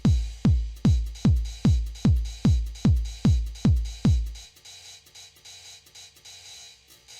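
Electronic background music with a heavy kick drum on a steady beat, about two and a half beats a second. About four and a half seconds in the kick drops out, leaving lighter, quieter percussion.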